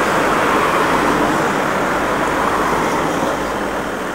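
Road traffic noise from a car on a city street: a steady rush of tyre and engine noise that eases slightly near the end.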